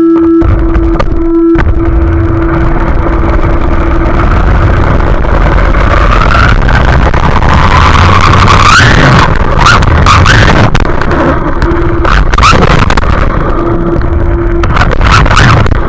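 Radio-controlled car driving with the sound picked up on board: loud running noise and rattle, with the motor's whine rising in pitch for a few seconds midway and a series of sharp knocks near the end.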